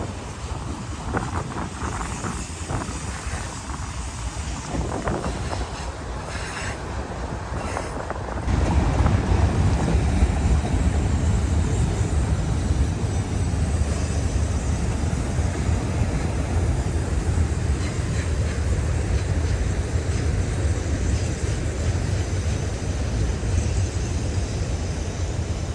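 Long loaded auto-rack freight train rolling past: a steady rumble of the cars' wheels on the rails that turns suddenly louder and deeper about eight seconds in.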